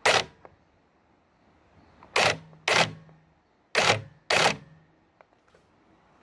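Einhell GE-CH 1846 Li cordless hedge trimmer switched on in five short bursts of about a third of a second each, its blades running with a low motor hum under each burst.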